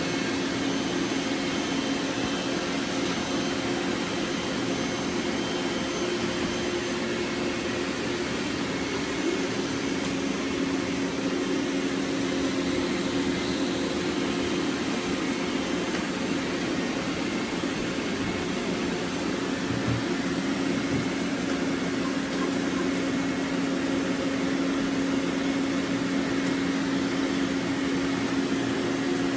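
Robot vacuums running: a steady motor whir with a constant low hum.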